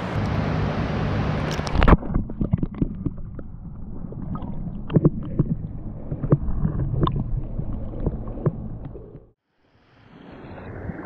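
Creek water rushing, then from about two seconds in the muffled sound of the stream heard underwater, with scattered clicks and knocks. It drops out briefly near nine seconds, and then the rush of flowing riffle water returns.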